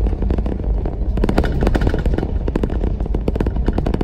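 Car driving slowly over a rough village road, heard from inside: a steady low rumble of road and engine noise with dense, irregular crackling and rattling.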